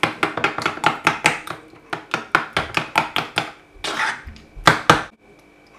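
Metal spoon beating thick homemade yogurt in a plastic bowl to break up its lumps: a quick run of knocks and scrapes against the bowl, about six strokes a second. It slows to a few heavier strokes and stops about five seconds in.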